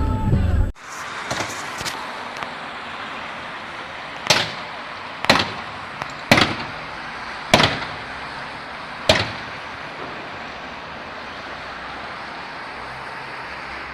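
Five sharp, short bangs at uneven intervals of about one to one and a half seconds over steady background noise.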